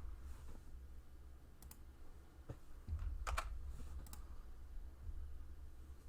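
A few faint, separate clicks at a computer, such as keyboard keys or a mouse, over a low steady hum.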